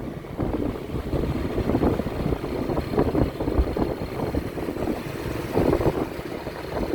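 Vehicle and road noise: an uneven low rumble without a horn tune.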